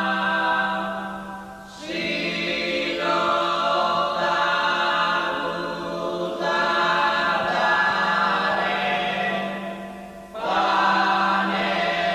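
Choral chanting in long held notes over a steady low drone. The voices fade out about two seconds in and again near the end, each time coming straight back in.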